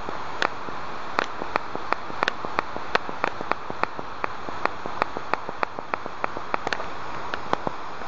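Steady rushing noise of a waterfall, with a string of sharp, short clicks, about three a second, running over it from about half a second in.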